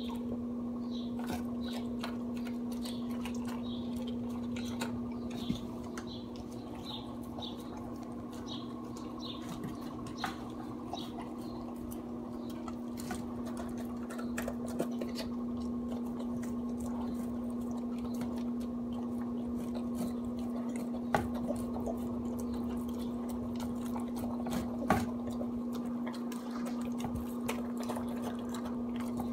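Basenji–Pharaoh Hound dog eating wet raw food from a stainless steel bowl: wet chewing and licking smacks, thickest in the first ten seconds, with a few sharper knocks against the bowl. A steady low hum runs underneath.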